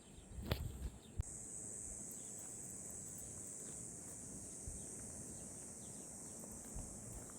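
Steady, high-pitched chirring of insects, with a couple of knocks in the first second or so.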